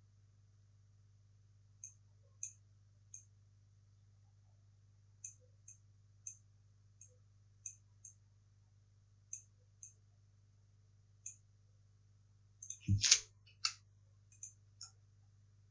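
Computer mouse clicks, single and scattered at irregular intervals, over a faint steady low hum. About thirteen seconds in there is a louder short thump or rustle with a quick run of clicks.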